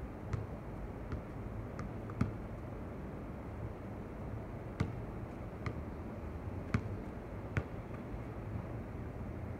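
Basketball bouncing on an outdoor hard court: short, sharp thuds at irregular intervals, about eight in all, over a steady low background hum.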